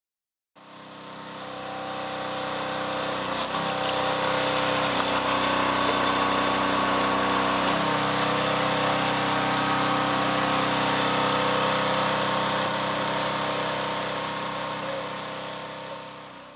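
Small gas engine of a hydraulic log splitter running steadily, its note shifting slightly a few seconds in and again about halfway through; the sound fades in just after the start and fades out at the end.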